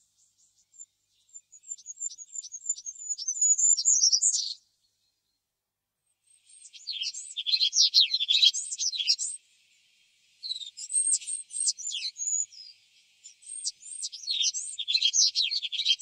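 Goldcrest singing: four bursts of very high, thin song, each a few seconds long with short pauses between them. The first burst is a quick run of notes that rises into a flourish.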